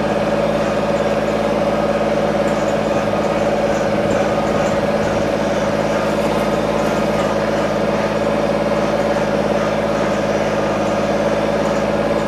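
Compact tractor's engine running at a steady speed while the tractor drives along, an even, unchanging drone.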